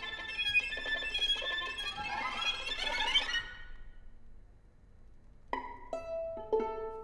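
Violin and viola duo: a dense bowed passage sweeping upward in fast glissandi breaks off about three seconds in. After a short pause a few sharp plucked notes ring out.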